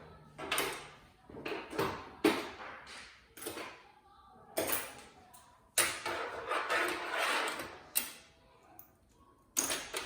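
Small metal screws clicking, clinking and scraping as they are gathered up with a magnet and dropped into a magnetic parts tray. The sounds come as a string of sharp clicks with a few longer scraping stretches in between.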